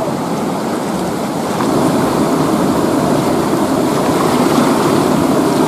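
Rushing river water tumbling over rocks in small rapids, a steady noise.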